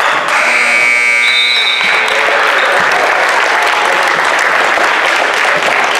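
A scoreboard buzzer sounds for about two seconds, a steady electronic horn of several tones at once. Crowd applause and cheering rise under it and carry on after it stops.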